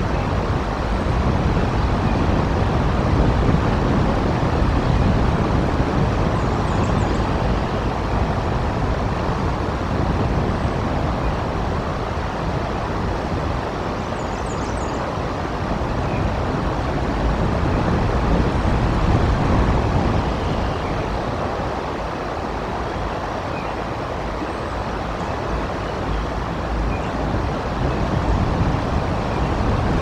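Strong wind gusting across an outdoor nest-cam microphone: a steady rush that swells and eases over several seconds. Two faint high chirps come through about a quarter and halfway through.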